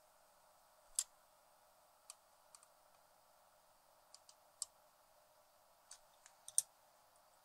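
Small, sharp, irregular clicks and ticks of a screwdriver against screws and the metal frame of a Tascam 112mk2 cassette deck transport as parts are fastened, with a louder click about a second in and a cluster near the end.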